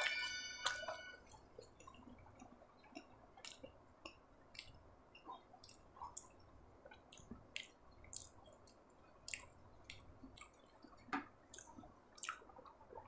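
Close-miked chewing of sabudana khichdi: wet mouth clicks and small smacks come irregularly, several times a second. A brief ringing tone with several steady pitches sounds right at the start, lasting about a second.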